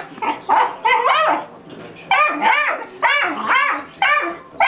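A Treeing Walker Coonhound puppy barking and yipping repeatedly at a littermate that has a bone. The high barks come in quick clusters, each rising and falling in pitch.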